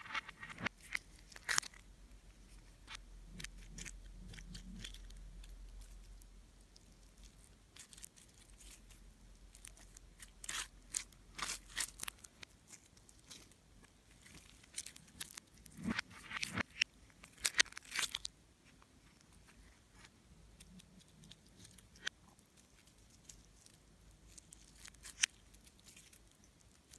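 Slime being worked by hand, giving scattered crackling clicks and pops in several bursts, with quieter gaps between.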